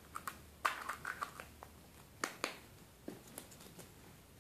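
A small plastic toy egg being handled and closed in a child's hands: a few light, irregular clicks and taps of plastic with faint rustling between them.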